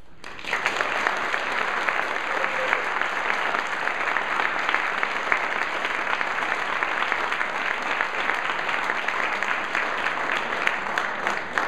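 Audience applauding. The clapping breaks out about half a second in, right after the final sung note, and then runs on steadily.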